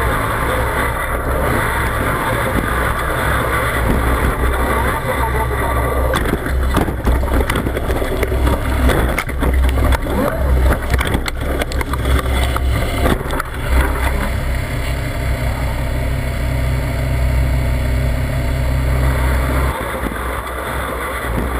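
A Formula Offroad buggy's engine running hard, heard from a camera mounted on the car, as it charges a steep climb and rolls over: through the middle comes a dense run of knocks and bangs from the tumbling car and flying dirt. After that the engine keeps running steadily, and its low drone drops away near the end.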